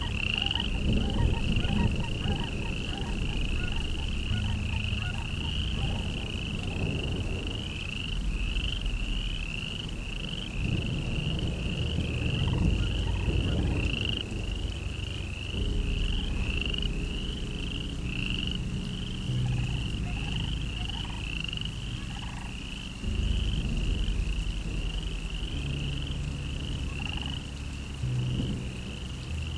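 A chorus of calling animals: a high chirping call repeating about twice a second, steady throughout, over a low rumble.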